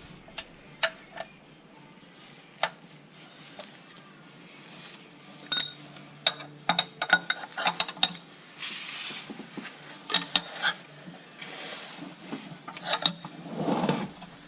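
Metal hand tools, sockets and ratchets, clinking and knocking as they are handled, with scattered sharp clicks, some of them briefly ringing.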